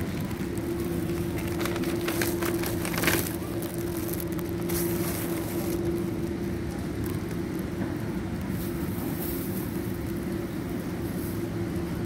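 Steady low rumble of a shopping cart being pushed along a tiled supermarket aisle, with a short sharp rattle about three seconds in.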